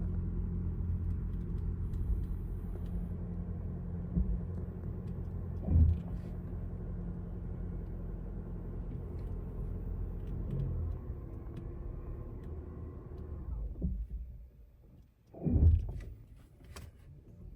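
2024 Toyota RAV4 rolling with a steady low rumble that fades away as it brakes to a stop. A few seconds later comes one short, loud, low creak from the brakes, like a rusty door, at the moment the pedal is let off. The owner takes it for a brake defect.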